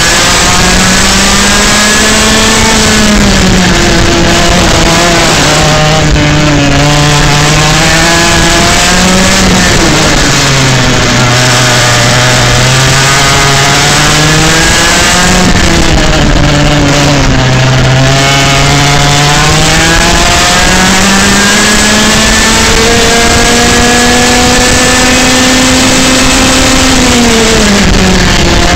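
Parilla 125cc two-stroke kart engine at speed, heard from the seat. Its note climbs on the straights and drops off into the corners several times, with the longest climb near the end before it falls away.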